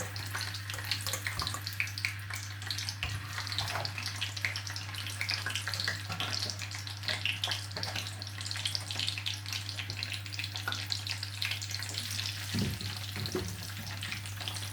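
Potato chips deep-frying in very hot oil in a pot: a steady, dense crackling sizzle, over a constant low hum, with a couple of dull knocks near the end.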